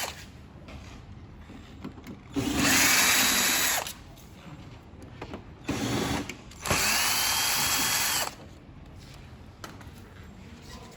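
Power drill-driver running in three short bursts, the middle one briefest, its motor whine rising as it spins up each time.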